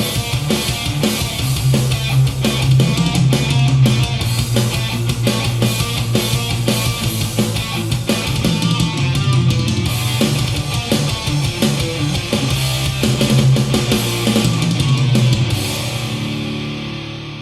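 Heavy rock music with electric guitar and drum kit played back through a Telefunken HL 870 CD three-way loudspeaker, with a strong bass line. The music dies away over the last couple of seconds.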